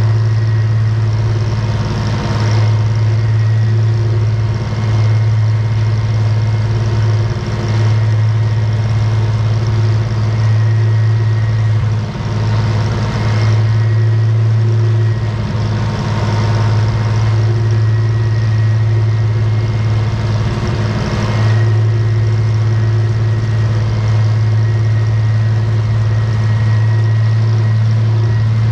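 Farmall 706 tractor engine running at a steady speed, a low even hum that dips briefly a few times, with a few short swells of rattling noise.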